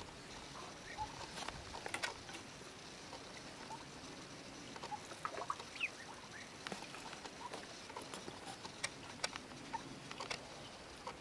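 Faint, scattered small clicks and splashes of ducks feeding and dabbling in a shallow ditch of water, with a few short chirps.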